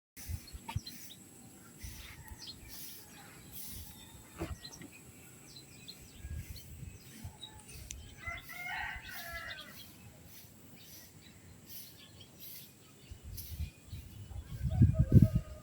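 A single bird call of a bit over a second, about eight seconds in, over a quiet outdoor background with scattered faint clicks. Low rumbling thumps come in near the end.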